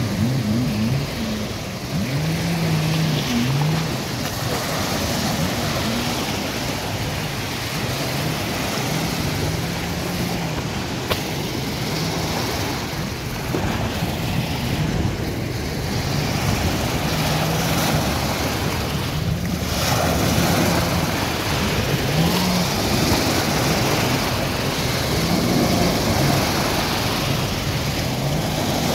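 Jet ski engine running and revving, its note rising and falling repeatedly as the craft speeds up and turns, over a steady wash of waves.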